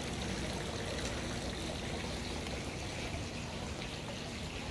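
Steady trickling, pouring sound of running water.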